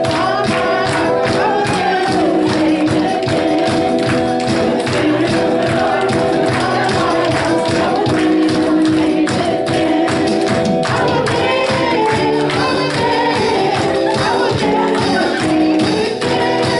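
Church worship music: a group singing over held chords, with a tambourine marking a steady beat.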